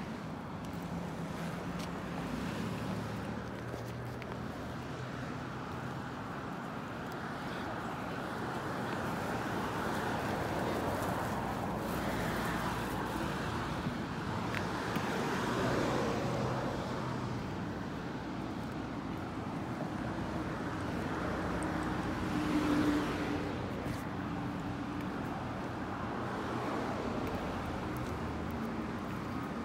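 Street traffic: cars and trucks passing on the road alongside, a steady rumble that swells as a vehicle goes by about halfway through and again, briefly louder, about three quarters of the way in.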